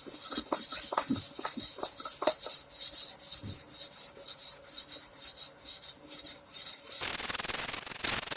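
Fine-grit sandpaper on a levelling block rubbed back and forth along a guitar's frets in quick strokes, about three a second, grinding the high frets down to the level of a low one. About 7 s in the strokes stop and a steady hiss takes over.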